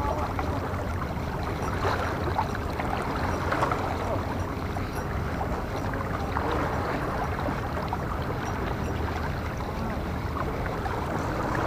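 Steady seaside ambience: a wash of water and wind noise with a low, steady hum underneath.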